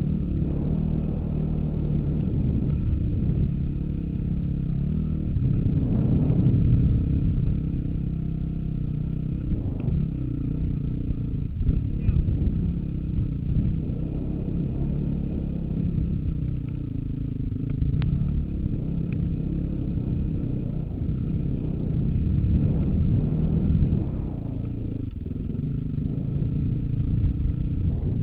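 Dirt bike engine running with throttle rising and easing on rocky singletrack, with clatter from the bike and a few sharp knocks about twelve and eighteen seconds in.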